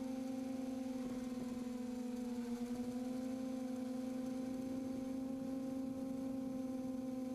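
Steady electric hum of a QAV540G quadcopter's motors and propellers, heard from its onboard camera. The pitch sags slightly about two and a half seconds in, then holds.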